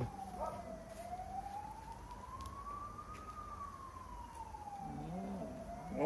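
Emergency vehicle siren in a slow wail: one faint tone climbs steadily in pitch for about two seconds, falls back over the next two and a half, and starts to climb again near the end.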